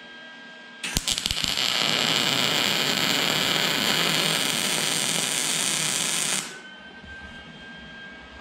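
Lincoln Easy-MIG 140 MIG welder arc on its second-highest heat setting, filling worn bolt holes in steel plate. It stutters on with a few sharp snaps about a second in, then crackles steadily for about five and a half seconds and cuts off abruptly when the trigger is released.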